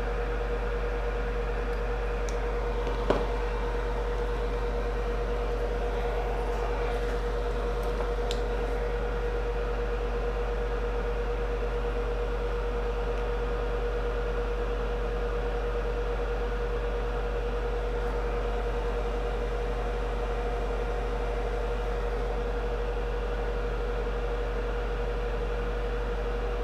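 Steady electrical hum of running bench equipment, a fan-like noise with a constant mid-pitched tone under it. One light click about three seconds in.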